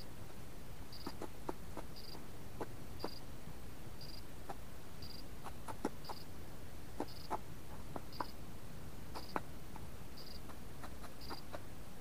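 Common pheasant pecking at bird food, a string of sharp irregular taps and clicks, a few louder than the rest. A faint high pip repeats steadily about every two-thirds of a second behind it.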